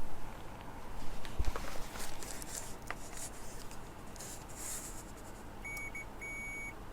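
Continuity beeper of a multimeter sounding a steady high beep that cuts out and restarts several times as the probes touch the repaired jumper wire, showing the connection now conducts. Before that, light clicks and rubbing from handling the probes and wire.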